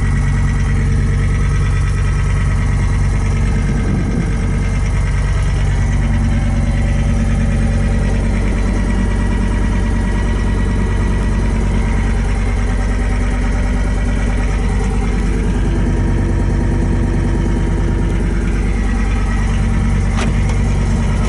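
Diesel engine of a 2006 John Deere 325 skid steer running steadily, with one short click near the end.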